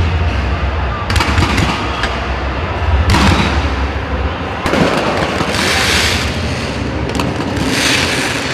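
Fireworks going off in a series of loud bangs, one every second or two, some trailing into a wide crackle, over a steady low rumble.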